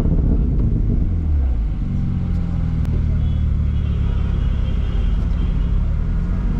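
Sports car engine heard from the open-top cabin: the revs fall away over the first couple of seconds, then it settles into a steady low drone.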